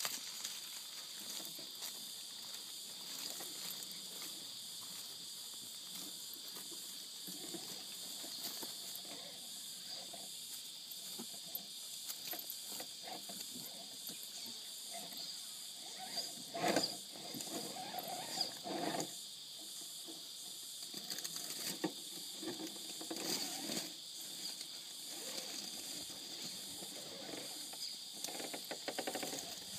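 Radio-controlled rock crawler with a 55-turn brushed motor creeping over boulders: its motor whirs quietly and unevenly as its tyres scrape and knock on the stone, with a few louder scrapes past the middle. A steady high insect drone goes on underneath.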